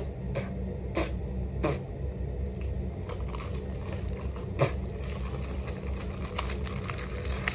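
Hands working at a hard-to-open makeup palette's packaging: scraping, crinkling and tearing, with a few sharp clicks in the first two seconds and another near the middle, then a run of small crackles. A steady low hum runs underneath.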